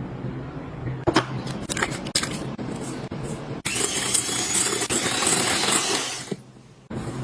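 Food-preparation sounds: several sharp clicks and knocks, then about two and a half seconds of loud, steady rushing noise that cuts off near the end.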